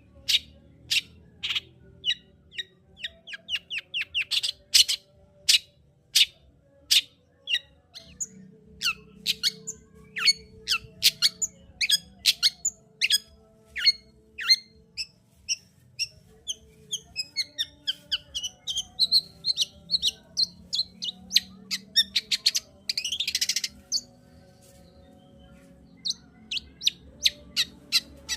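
Long-tailed shrike (cendet) singing: a long run of sharp, short chirps, several a second, with quick trilled phrases and a harsh, scratchy call about 23 seconds in.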